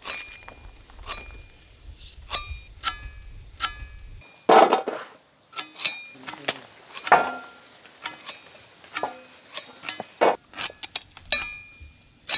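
Irregular metallic clinks and knocks of utensils against metal vessels, about one or two a second, several ringing briefly. Heavier knocks come about four and a half and seven seconds in. Short high chirps repeat in the background through the middle.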